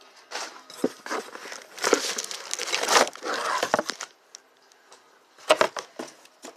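Packaging being handled and unwrapped by hand, rustling in uneven bursts for about four seconds, then a few sharp clicks or knocks about five and a half seconds in.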